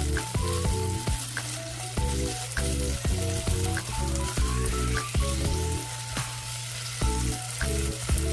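Food sizzling as it fries in a hot pan, a steady crackling hiss, under background music with a repeating beat and a simple melody.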